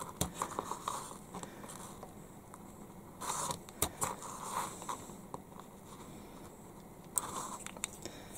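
Stanley knife blade shaving and scraping a black plastic toy track sprocket, cutting a recess for a nut. It comes as a series of short, irregular scraping strokes with light clicks.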